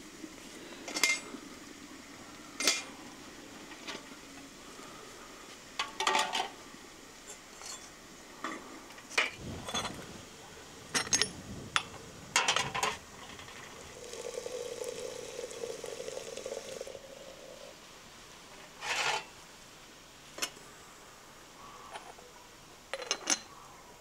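Scattered clinks and knocks of cookware and metal utensils being handled, about a dozen irregular strikes, with a steadier sound lasting about three seconds in the middle.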